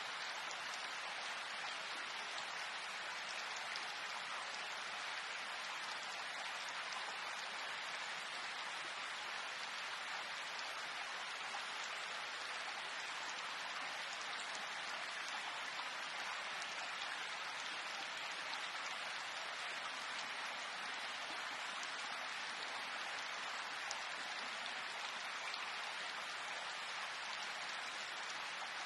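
Steady rain: an even hiss of falling drops that neither builds nor fades, with no thunder or single loud drops standing out.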